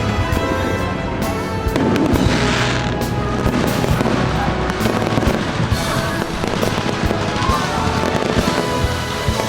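Aerial fireworks going off, a series of sharp bangs and pops with a burst of crackling about two seconds in, over loud music.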